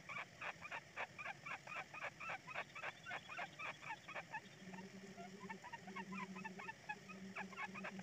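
Kingfisher nestlings in their nest burrow giving rapid, rasping calls, about five a second, which thin out about halfway through. Low humming notes come and go in the second half.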